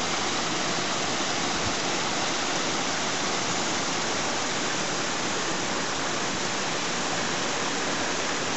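A small mountain stream tumbling over rocks in a little cascade: a steady, even rush of water.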